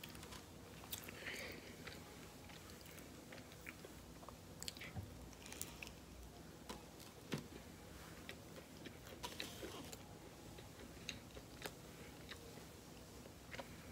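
Faint biting and chewing of a Hot Pocket: scattered small clicks and mouth noises as it is eaten.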